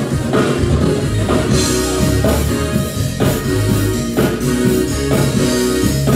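Organ music: sustained chords that change about once a second over a deep bass line.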